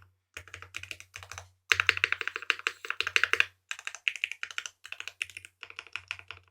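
Typing on a Ciel 60 mechanical keyboard with lubed Gateron Bubblegum switches, an aluminium plate and GMK keycaps: runs of quick keystrokes with short pauses between them. The fastest, loudest run comes from about two to three and a half seconds in.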